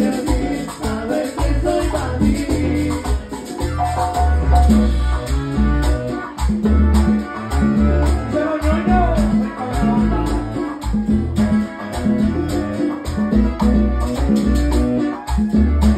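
Live salsa band playing, with hand-played congas and rattling percussion over a steady bass beat.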